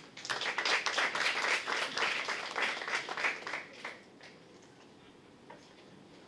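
Audience clapping for about four seconds, then dying away.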